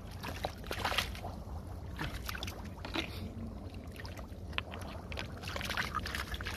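Hands splashing and groping in shallow muddy water while picking up snails: irregular small splashes and wet sloshes.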